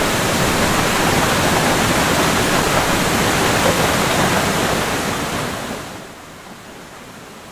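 Waterfall water rushing and crashing in a steady roar of noise, which drops to a quieter, even rush about six seconds in.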